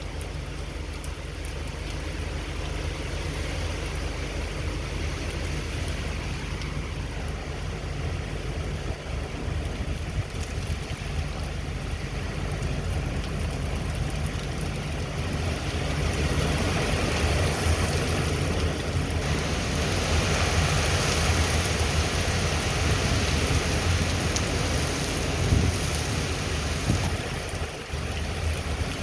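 Hurricane wind and heavy rain making a steady roaring hiss over a low rumble. A stronger gust builds about halfway through and eases shortly before the end.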